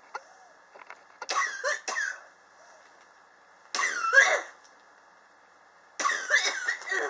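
A man coughing in three fits about two seconds apart, each a quick run of several coughs. It is a chronic cough that has gone on for years.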